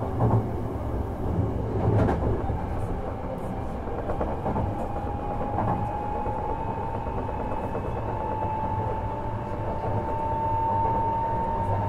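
Interior running sound of a Hankyu 1000 series train driven by permanent-magnet synchronous motors: a steady rumble of the wheels on the rails with a couple of knocks in the first two seconds. About four seconds in, a thin motor whine sets in and rises slowly in pitch as the train gathers speed.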